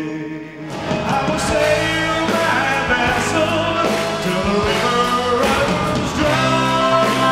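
A slow ballad's last held notes die away, and about a second in a live rock band kicks in with drums, with a man singing over it.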